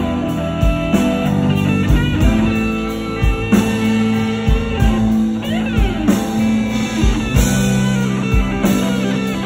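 Live electric guitar solo over a rock band's drums: long held lead notes, with a quick run of sliding notes about five and a half seconds in.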